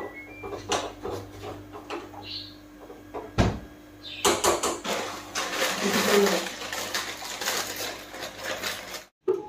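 A plastic instant-noodle packet is crinkled and rustled for several seconds. Before that come light clinks of a spatula against a pan and a single thud about three seconds in.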